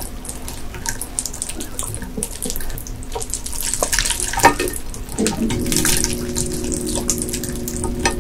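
Wet, slippery squishing and crackling of live ice gobies on a plate as fingers press and stir through them, with a steady low hum joining about five seconds in.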